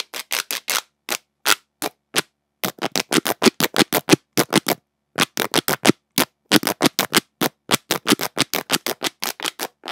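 A plastic pop tube fidget toy, shaped as an axolotl, being stretched and squashed so its ridged corrugated tube snaps in rapid trains of pops, in three runs with short pauses between. Both ends of the tube are capped by the axolotl's head and tail, which keeps the popping from being very loud.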